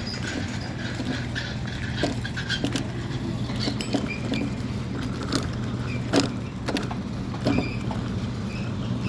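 A steady low engine hum, with scattered sharp knocks and clanks over it.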